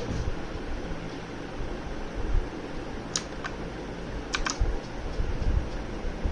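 Redgear Shadow Blade mechanical keyboard with blue switches being typed on as a sound demo: scattered key presses, with a few sharp clicks clustered about halfway through and softer key thuds between.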